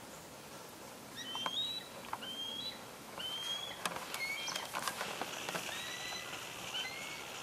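A bird calling in a series of short, high, upward-sliding whistled notes, starting about a second in and repeating for several seconds. Sharp clicks and rustling from the camera being handled mix in during the second half.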